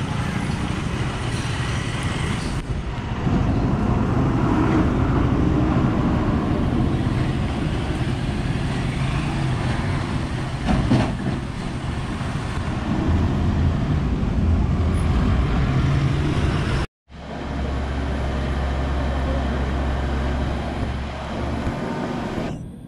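Road traffic on a hairpin bend: the diesel engines of heavy lorries and a bus pulling through the turn, with cars and motorcycles passing. The sound drops out for an instant about two-thirds of the way through and comes back as a steady low engine hum.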